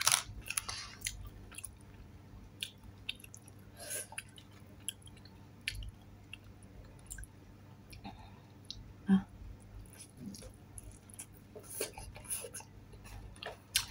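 Close-miked chewing and lip smacks of a person eating with her fingers, with scattered short wet clicks; one louder smack about nine seconds in.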